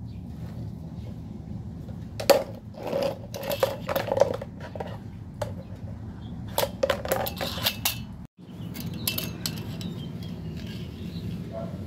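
Hard plastic clattering and knocking as a toy garbage truck's lifting arm grabs and handles a plastic toy wheelie bin, in two bursts of rapid knocks over a steady low hum.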